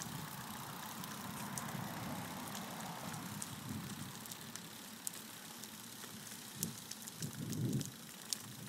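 Steady rumble of small wheels rolling over an asphalt path, with faint scattered clicks and a louder low swell about seven and a half seconds in.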